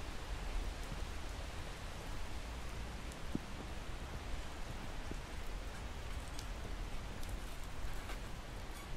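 Steady outdoor ambient noise: an even hiss with a low rumble underneath, and a few faint scattered ticks.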